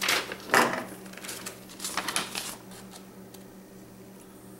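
A sheet of paper and a fixed-blade knife being picked up and handled over a wooden table: several short rustles in the first two and a half seconds, then quieter.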